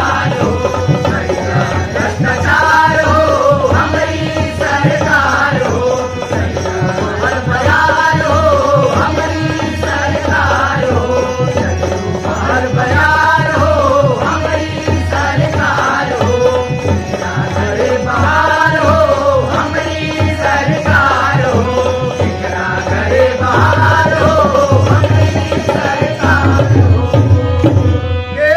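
A group singing a Bhojpuri folk song in chorus, lead voice and chorus together, accompanied by harmonium, tabla and dholak with a steady, lively drum rhythm.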